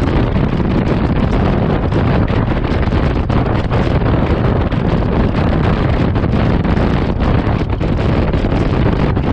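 Wind rushing and buffeting on a GoPro Hero 7 Black's microphone while riding a Honda Forza 125 scooter at road speed: a loud, steady, low rumble with quick flutters.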